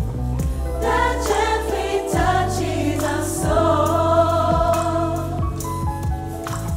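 Gospel choir singing in harmony over a band with bass and drums.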